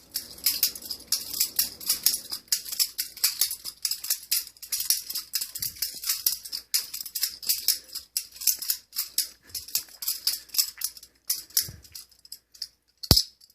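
Butterfly knife being flipped: rapid metallic clicking and clattering as the two handles and the blade swing around their pivot pins and knock together, with one sharper snap near the end.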